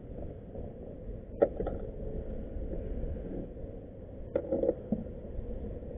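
A fish being unhooked by hand on a kayak: a few sharp clicks and knocks of hook, line and gear, about a second and a half in and again around four and a half seconds, over a steady low rumble of wind and water.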